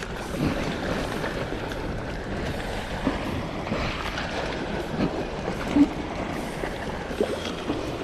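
Steady wash of sea and wind noise, with a few small knocks, the sharpest about six seconds in.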